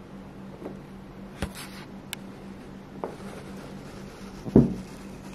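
Light handling sounds of a metal ultrasonic welding transducer being picked up: a few faint clicks and one louder thump near the end, over a steady low hum.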